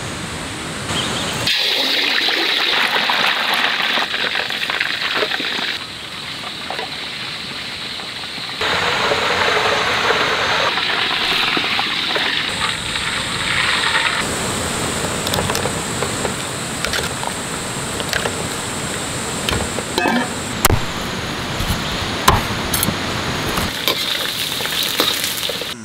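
Hot oil sizzling around a whole marinated chicken frying in a wok. The hiss comes in stretches that start and stop abruptly, and a few sharp clicks of a metal ladle against the wok come near the end.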